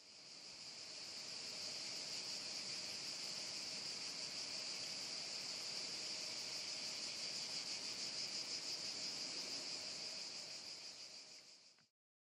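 Steady chorus of insects chirping in a dense, high-pitched trill, fading in at the start and fading out shortly before the end.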